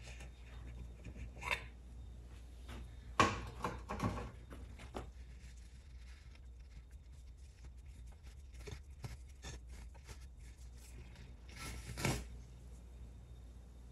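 Cloth rags being stuffed into and rubbed around inside a motorcycle oil tank through its filler opening, pushed with a screwdriver: scattered rubbing and clicks, with a sharp knock about three seconds in, a few more just after, and another knock near the end.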